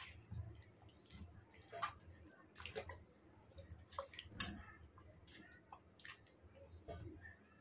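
Wet squelching of a bare hand kneading thick masala marinade into chicken pieces in a steel bowl, in faint, irregular strokes, the sharpest about four and a half seconds in.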